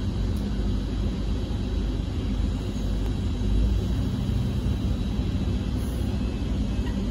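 GWR Class 800 bi-mode train's underfloor diesel engines running at close range: a steady low rumble with a faint steady whine above it.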